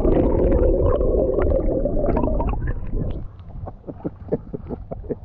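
Muffled underwater gurgling from a camera dunked in the river beside a canoe, lasting about three seconds, then a quick run of small ticks and drips as the camera comes back out of the water.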